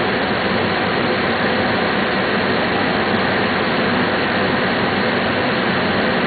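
Steady cockpit noise of an MD-80 airliner on final approach: an even rush of air and engine hum, unbroken throughout.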